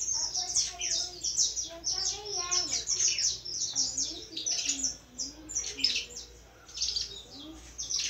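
Young canary in its first song, a rambling run of quick high chirps and twitters, thinning out about two thirds through before picking up again near the end.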